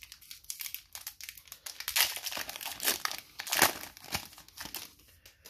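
Foil wrapper of a Pokémon booster pack crinkling and tearing as it is ripped open and the cards are pulled out, a dense crackle with louder bursts about two, three and three and a half seconds in.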